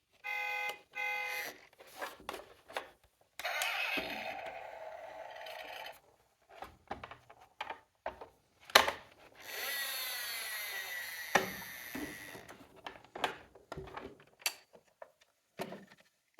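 Toy emergency-vehicle mini cars being handled and run down a slope. Two short electronic beeps come near the start, then clicks and knocks of plastic, with two spells of steady rolling rattle from the toy wheels, the second about ten seconds in. A sharp click comes just before it.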